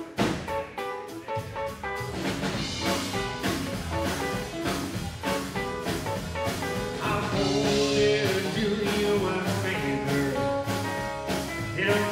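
Live rockabilly band playing: strummed acoustic guitar with drums, the full band coming in about two seconds in on a steady beat. The singer comes in near the end.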